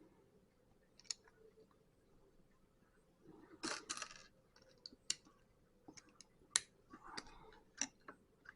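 Plastic Lego pieces clicking and rattling as they are handled and pressed together: a single click about a second in, a short burst of rattling near the middle, then a run of sharp separate clicks.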